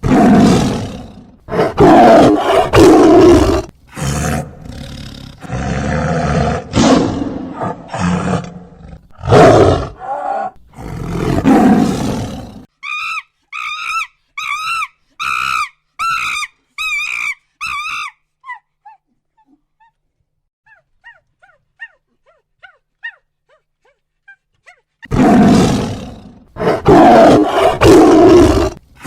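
A run of animal calls: loud, low, rough roaring calls repeated for several seconds. Then a series of about ten short, high, warbling calls, then faint chirps, and loud roaring calls again near the end.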